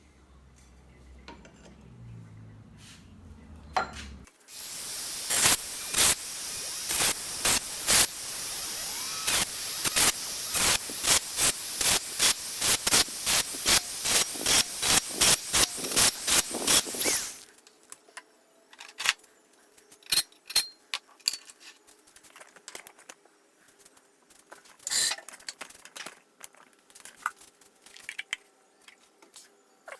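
A hand file rasping across the steel of a mower-blade cleaver blank in rapid, regular strokes, about two or three a second, for some thirteen seconds, then stopping. Scattered light metallic clinks follow.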